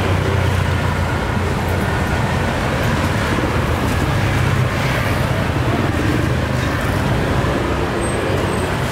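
Steady road traffic noise: the engines of passing vehicles running as a continuous low rumble.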